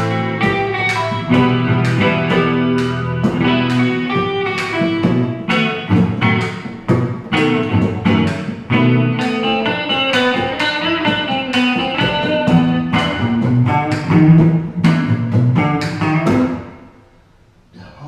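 An electric guitar and an acoustic guitar playing an instrumental passage together, plucked notes and chords ringing over each other. The playing dies away to a brief hush near the end.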